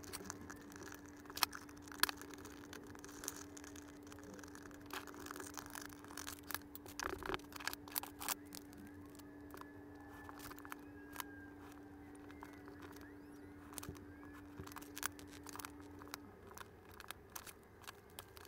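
Faint, scattered clicks and taps of small hardware and a paper label sheet being handled and cut against a steel ruler on a desk, over a steady low hum that stops near the end.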